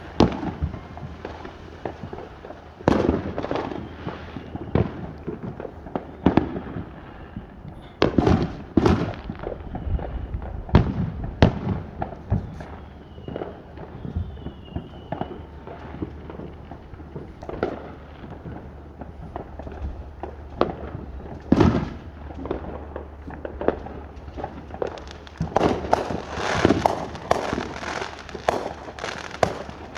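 Fireworks going off, sharp bangs at irregular intervals a second or more apart, breaking into a dense run of rapid crackling pops near the end.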